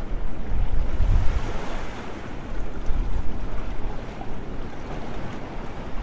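Sea waves breaking and washing over a low rocky shore, a steady swelling surf. Wind buffets the microphone in low rumbles, strongest about a second in.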